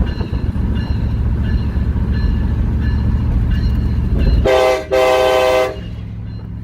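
Graham White E-Bell electronic locomotive bell ringing steadily, about one strike every 0.7 seconds, over the pickup's running engine. About four and a half seconds in, the bell stops and the truck-mounted Nathan Airchime K5LA five-chime train horn gives two short blasts, the second longer.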